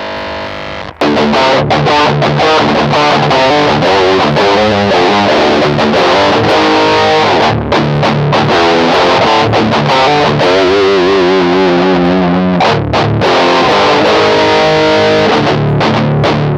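Electric guitar played through an Electro-Harmonix Metal Muff Pocket high-gain distortion pedal: a heavily distorted metal riff that starts about a second in and keeps going.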